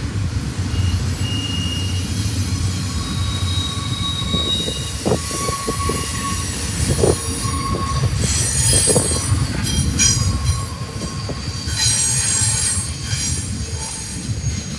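Double-stack container train's well cars rolling past: a steady rumble of steel wheels on the rails, with thin high-pitched wheel squeal coming and going. A few short knocks come from the passing cars around the middle.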